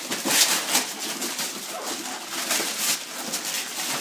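Wrapping paper being torn and crumpled as several children unwrap presents at once, in quick irregular rips and rustles, busiest in the first second.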